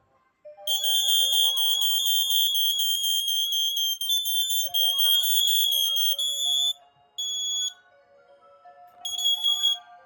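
Interconnected smoke and CO alarms sounding under test: a shrill, steady alarm tone starts just under a second in and holds for about five seconds. It then breaks into separate half-second beeps as the CO5120PDBN picks up the FireX FADCM's CO signal. Background music with a simple melody plays underneath.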